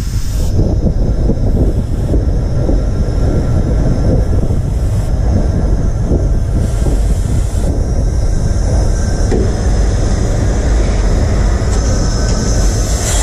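Steam locomotive Taff Vale No.85 on the move, heard from its footplate: a loud, steady, rough rumble of the engine running on the rails. A hiss comes up near the end.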